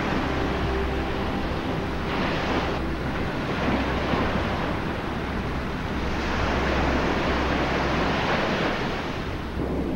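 Ocean surf washing on a beach, a steady rush of breaking waves that swells about two seconds in and again from about six to nine seconds.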